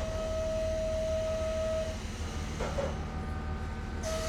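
Underfloor diesel engine of a KiHa 47 railcar idling, a steady low rumble heard inside the passenger cabin. Over it a steady high beeping tone is held for about two seconds at the start and comes back near the end.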